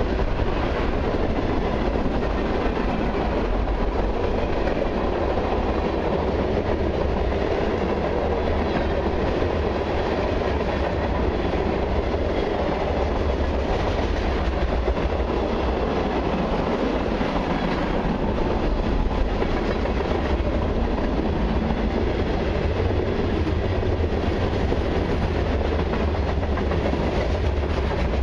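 Mixed freight train's tank cars and covered hoppers rolling past close by: a steady, unbroken noise of steel wheels running on the rails, heavy in the low end.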